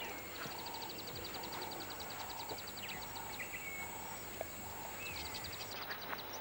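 Open-country wildlife ambience: a rapid, high ticking insect trill that comes and goes, a short low call repeated over and over, and a few brief whistled bird calls.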